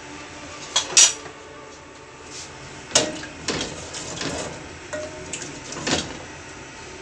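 Wooden spoon stirring watery broth in an aluminium pot, knocking against the pot's side now and then. The loudest knock comes about a second in.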